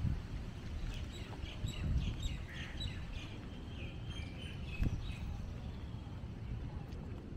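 Birds chirping, a run of short high chirps that thins out after about five seconds, over a steady low outdoor rumble.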